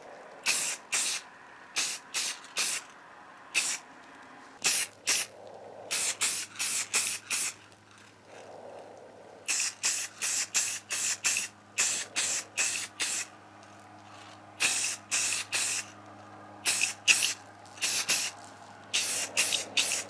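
Aerosol spray paint can sprayed in dozens of short hissing bursts, each about a quarter second long, coming in quick runs of three to six with short pauses between.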